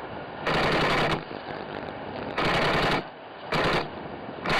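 Three bursts of rapid automatic gunfire, the first the longest at under a second, with a fourth just starting at the end, over the steady drone of the RC plane's motor.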